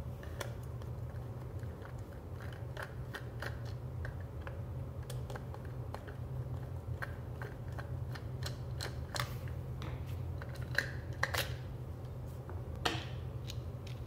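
Scattered small clicks and knocks of a screwdriver working the screws of a plastic CEE form industrial plug and of its plastic housing and contact insert being handled and pulled apart, over a steady low hum. The clicks are busiest in the last few seconds.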